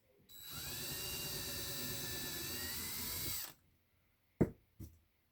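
Small electric drill running at a steady whine for about three seconds, then switched off, while drilling holes in air-dry clay. Two short sharp knocks follow about a second later.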